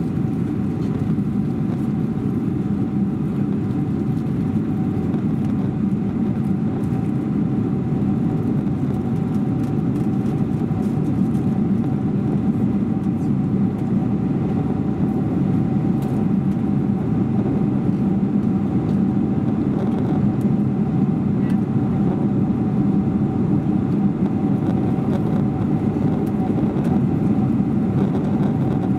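Steady cabin noise of a Boeing 747-400 in flight: a low, even rush of airflow and engine noise, with a faint steady tone running through it.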